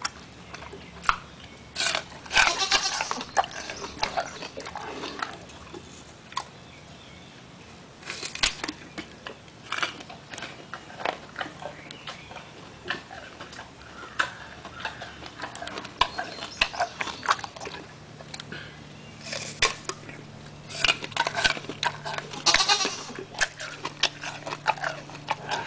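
A gorilla chewing an apple: irregular wet crunches, mouth clicks and lip smacks, coming in dense clusters now and then.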